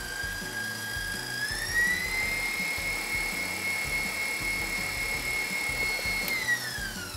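Electric stand mixer with a wire whisk beating a whipped-cream filling: a steady motor whine that steps up in pitch about a second and a half in. Near the end it falls away as the mixer is switched off and spins down.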